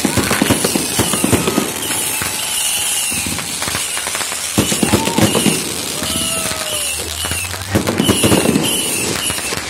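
Fireworks going off, a dense run of sharp crackles and pops with louder bursts about half a second in, near five seconds and near eight seconds.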